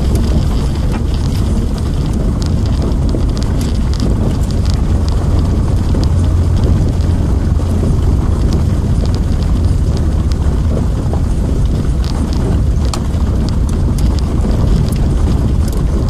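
Car driving on a gravel forest road, heard from inside the cabin: a steady low rumble of engine and tyres, with scattered small clicks from the gravel.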